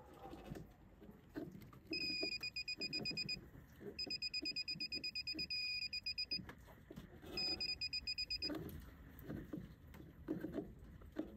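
UNI-T circuit breaker finder receiver beeping rapidly as it passes over the breakers: three runs of fast, even pulses on one high tone, the signal that it has picked up the transmitter's trace on the circuit under its tip. Between the runs come soft knocks and scrapes of its plastic tip against the breaker handles.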